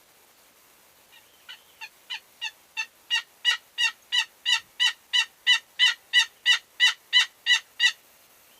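A long series of about twenty turkey yelps, about three a second, starting faint and building to loud within a couple of seconds, then holding steady until they stop shortly before the end.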